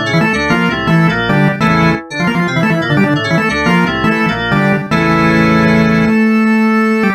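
Synthesized phone ringtone music from the Samsung SCH-X730's ringtone set, in keyboard- and organ-like tones: quick runs of notes, a brief break about two seconds in, then a long held chord near the end.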